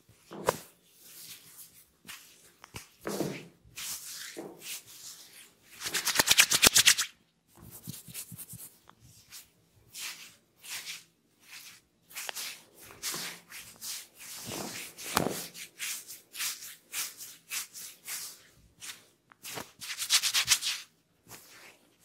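Fingers rubbing and scratching through hair and over the scalp in a head massage: a run of short rubbing strokes, with two louder spells of fast, even scratching about six and twenty seconds in.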